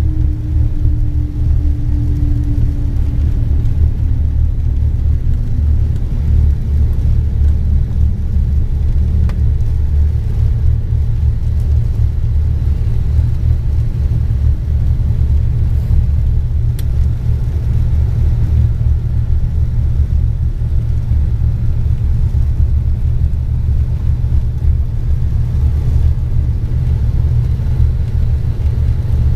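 Piston engines and propellers of a Cape Air Cessna droning steadily, heard from inside the cockpit while the plane taxis. Over the first several seconds a tone in the drone slides slowly down in pitch.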